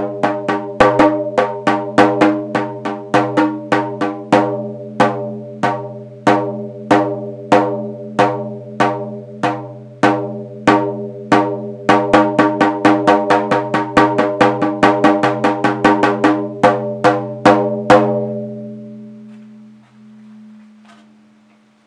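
A drum struck over and over in an uneven rhythm, about two strokes a second, breaking into a quicker run of strokes about two thirds through. The strokes then stop and the drum's low ringing tone dies away over a few seconds.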